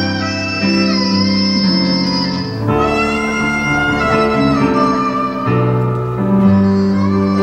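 Hichiriki, the small double-reed bamboo pipe of gagaku, playing a reedy melody of long held notes with a pitch bend about a second in, over sustained piano chords.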